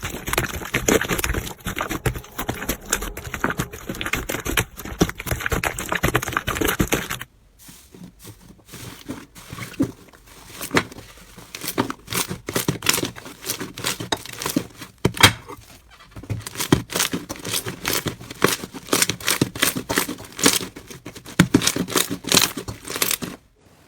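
Slime being squeezed and worked by hand, giving sticky crackling and popping clicks: dense for the first seven seconds, then sparser, separate pops after a sudden change.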